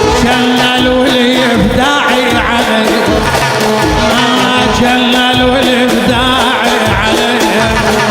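Iraqi popular song playing, an instrumental passage: an ornamented, wavering melodic lead over sustained accompaniment and a steady drum beat.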